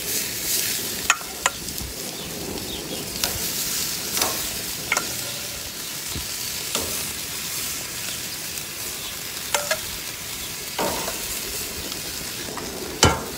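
Chicken, lamb steaks and chicken hot dogs sizzling steadily on a grill set to high heat, with sharp clicks and knocks now and then.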